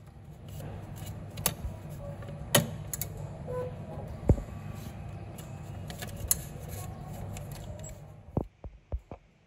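Nippon Signal push-button ticket machine's banknote acceptor drawing in and checking a 1,000-yen note: a low motor hum with scattered sharp clicks, which stops about eight seconds in as the note is credited, followed by a few separate clicks.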